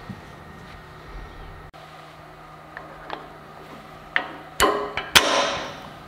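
A few sharp metal knocks and clanks, bunched together near the end, the loudest two ringing briefly.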